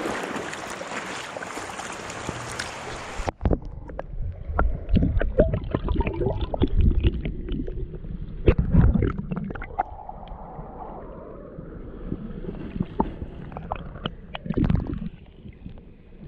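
Shallow creek water running over stones, first a bright rushing hiss at the surface; about three seconds in the microphone goes under and the sound turns to muffled underwater gurgling and rumbling with small clicks and knocks.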